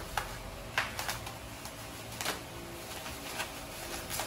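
Plastic wrapping and tape being handled and pulled off a packed item by hand, giving a handful of irregular sharp clicks and crinkles.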